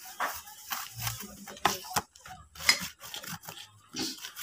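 Scraping and rubbing of an amplified speaker's front panel being handled: irregular short scratches, with a sharp click about two seconds in.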